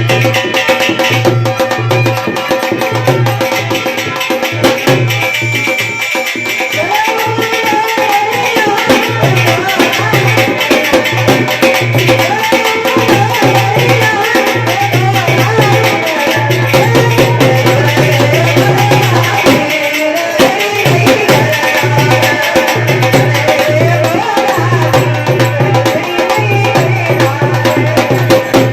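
Rajasthani devotional bhajan music: a gliding melody line over steady hand-drum and rattle percussion with a pulsing low drone.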